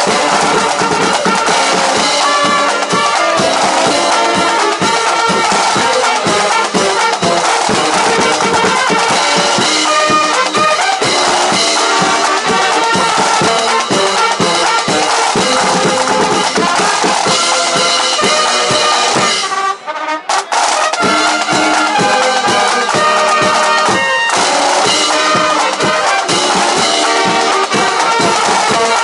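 A brass band with drums playing: trumpets and trombones over a steady beat of bass drum and drums. The music briefly drops out a little before two-thirds of the way through, then carries on.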